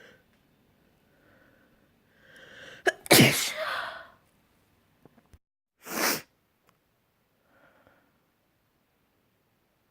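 A person's wet, spraying sneeze: a drawn-out voiced "ah" build-up, then one loud sneeze about three seconds in. About three seconds later comes a short, sharp breathy burst.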